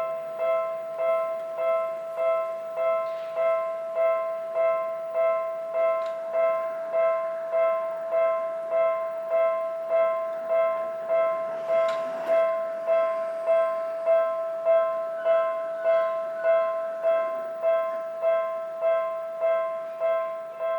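Electronic warning bell of a Japanese railway level crossing, ringing in an even, steady series of about one and a half dings a second: the crossing signal is active for an approaching train.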